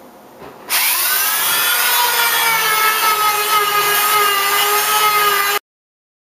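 Dremel rotary tool with a sanding drum starting up with a rising whine, then running steadily at a high whine as it sands and eases the edges of a cherry wood piece; it cuts off suddenly near the end.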